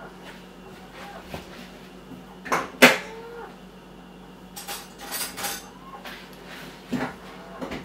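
Knocks and clatter: one sharp knock just before three seconds in, a cluster of rattling knocks around five seconds, and another knock near the end, over a steady low hum.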